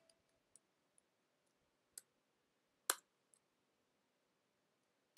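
Near silence broken by a few isolated computer keyboard key clicks, the loudest about three seconds in.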